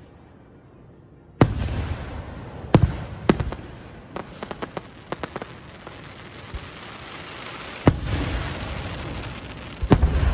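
Aerial fireworks shells bursting: a sharp bang about a second and a half in, two more bangs close behind, a run of small crackling pops, and further bangs later and near the end, with a steady crackling hiss of burning stars in between.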